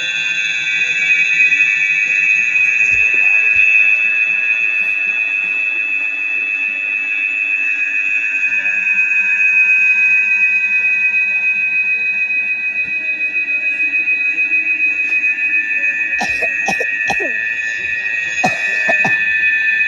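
Steady high-pitched whistle-like tone made of several held pitches, with a few short gliding chirps near the end.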